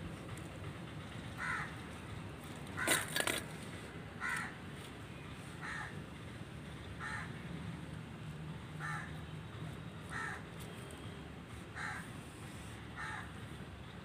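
A bird calling over and over, about nine short calls roughly every second and a half, with a louder double call about three seconds in.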